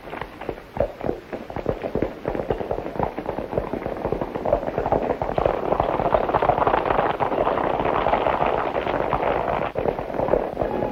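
Hoofbeats of a group of horses galloping on a dirt street: a dense, uneven clatter that grows louder and thicker about four seconds in.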